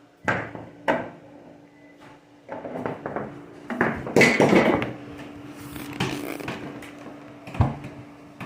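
A few sharp knocks and some clatter of objects being handled, over a faint steady hum.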